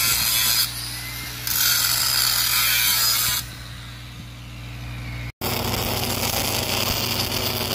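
Angle grinder grinding a steel pipe-to-flange weld, biting in hard twice with lighter stretches between. About five seconds in, an abrupt change to a steady hiss of arc welding.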